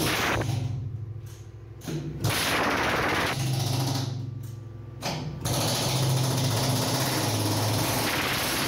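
Chipping hammer breaking hardened concrete inside a transit mixer's steel drum: rapid continuous hammering that stops twice for a second or two in the first half, then runs on steadily.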